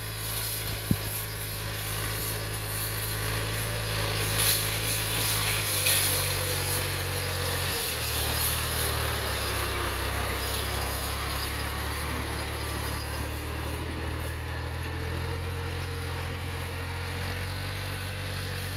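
Tractor engine running steadily, its low note shifting twice in the first eight seconds.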